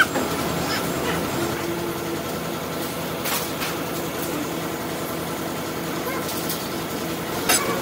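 A vehicle engine running steadily at idle, with a couple of faint clicks.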